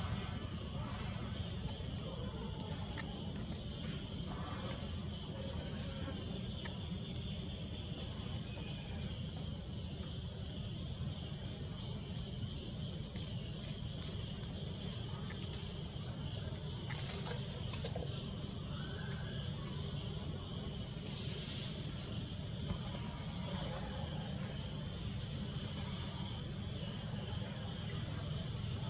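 Insects shrilling steadily in the surrounding vegetation: a fast, even pulsing trill with a continuous high whine above it. The trill drops out briefly about halfway through, over a low steady background rumble.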